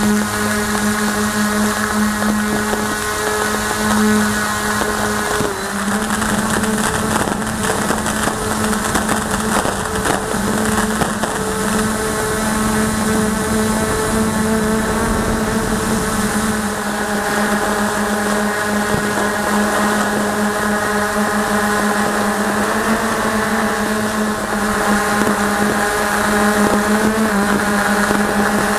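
EHang Ghostdrone 2 quadcopter's electric motors and propellers running steadily as it lifts off and climbs: a loud, even buzzing hum, heard from the drone's own onboard camera, with small shifts in pitch.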